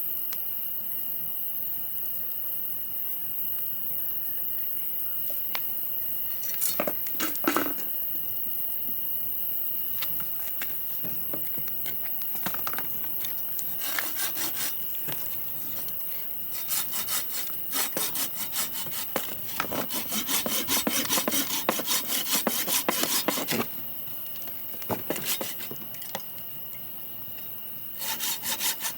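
Saw cutting through wood in bursts of quick, repeated strokes, starting about a quarter of the way in and heaviest through the second half, over a steady hiss with a thin high tone.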